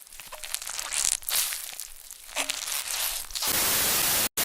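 Crackly rustling and crinkling noise close to the microphone. About three and a half seconds in, a loud steady hiss of static cuts in suddenly, broken by short dropouts near the end.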